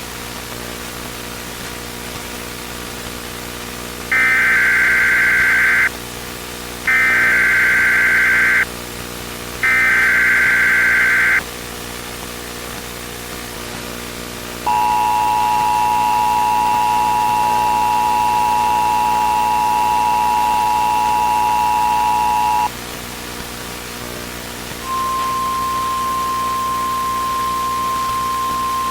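Emergency Alert System tones: three bursts of SAME header data, each under two seconds, about a second apart, then the two-tone EAS attention signal held for about eight seconds. A steady single tone starts a couple of seconds later, all over a constant low hum.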